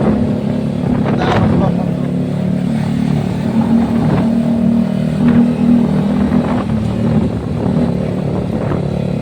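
Yamaha R15 V3's single-cylinder engine running while the motorcycle is ridden at a fairly steady speed, its exhaust note deep and bassy, with slight rises and dips in engine speed.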